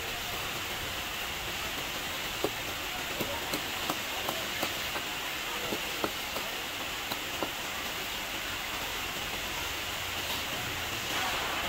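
Cleaver knocking on a wooden chopping block as a fish is scaled and cut: an irregular run of about a dozen sharp knocks over some five seconds, over a steady hiss of market background noise.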